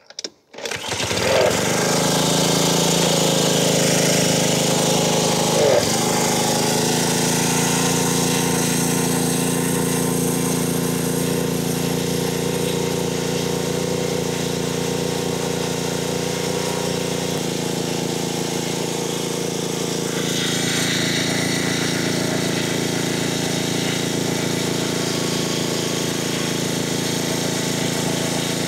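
Honda GCV160 single-cylinder engine on a pressure washer starting up about half a second in, catching at once and settling into a steady high-speed run. Its speed is being checked and trimmed back from just under 3,500 RPM, a little too fast for this engine. The tone shifts slightly about two-thirds of the way through and gains a hissing edge soon after.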